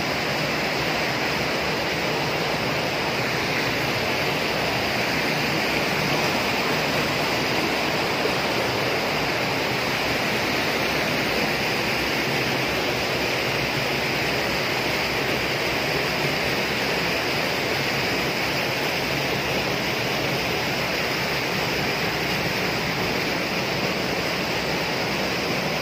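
Steady rush of a mountain stream flowing fast through a narrow rock gorge, an even, unbroken water noise.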